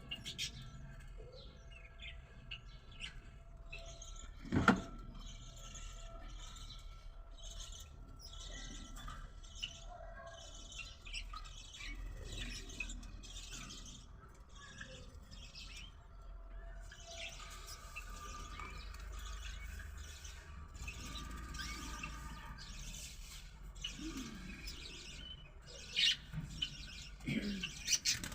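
Lovebirds chirping and twittering in rapid, repeated high calls, growing louder near the end. A single loud thump about five seconds in.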